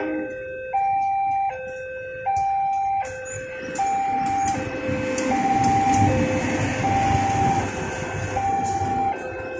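Indonesian railway level-crossing warning bell sounding its alternating two-tone ding-dong over and over. From about three seconds in a passenger train runs across the crossing, adding a rising rumble of wheels on the rails that is strongest in the middle and eases off near the end.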